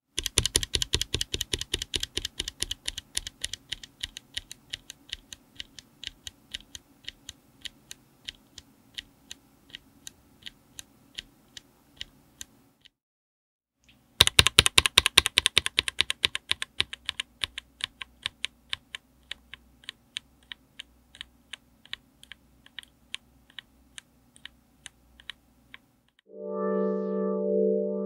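A single Akko V3 Cream Blue Pro tactile mechanical keyboard switch pressed and released over and over, first bare and then with a keycap fitted. Each run of clicks starts fast and gradually slows, with a short pause between the two runs. Synth music comes in near the end.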